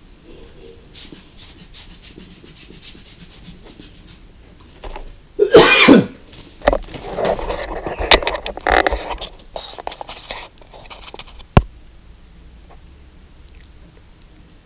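A man coughing loudly about five and a half seconds in, followed by a few seconds of rustling handling noise and a single sharp click.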